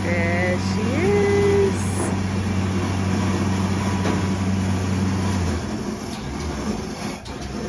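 Steady low motor hum that cuts off about five and a half seconds in, with a short squeaky tone gliding up and holding briefly about a second in.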